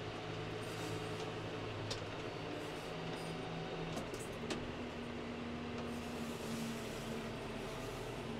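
Tractor's diesel engine running under load as its front loader works into a muck heap; the engine note steps up about halfway through, with a couple of faint knocks.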